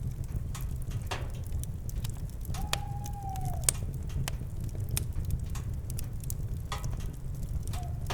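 Campfire crackling and popping over a steady low rumble of the burning wood. About two and a half seconds in, an owl gives one hoot lasting about a second that drops in pitch at its end, and a short hoot begins near the end.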